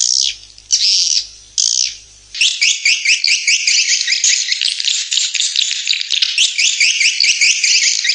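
Recorded swiftlet calls played as a lure sound to draw a swiftlet colony into a nesting house. Three short bursts of high twittering come first, then from about two and a half seconds in a dense, unbroken stream of quick rising chirps.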